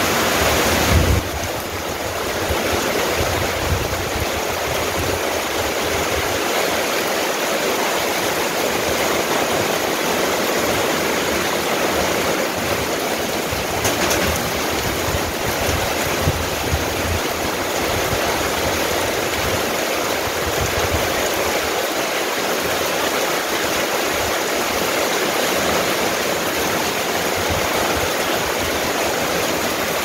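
Steady rain falling, a dense even hiss of water with no let-up. There is a brief low thump about a second in.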